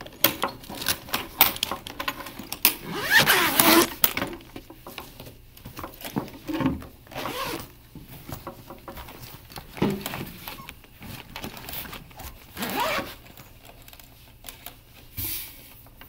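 Violin and viola cases being zipped shut and handled: zipper runs, clicks and knocks, loudest for a second or so about three seconds in.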